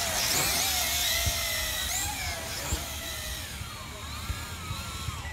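Tarantula quadcopter's small electric motors and propellers whining in flight, several pitches wavering up and down as the motor speeds change. The whine grows fainter about halfway through.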